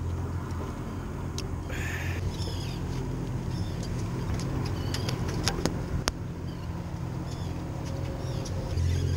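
Boat's outboard motor idling with a steady low hum, while seabirds call in short, high, repeated chirps. A few sharp clicks come around the middle.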